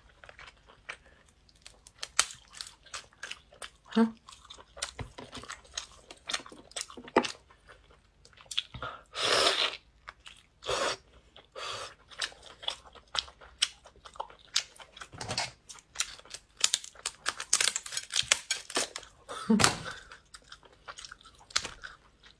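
Hard shell of cooked slipper lobster tails being cracked and peeled apart by hand, close to the microphone, with chewing of the meat. Irregular sharp crackles and clicks run throughout, with louder stretches about nine to eleven seconds in and again around twenty seconds.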